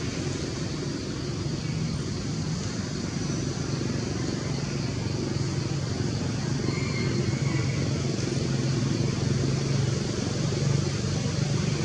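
Steady drone of road traffic, motor vehicles running continuously and getting slightly louder.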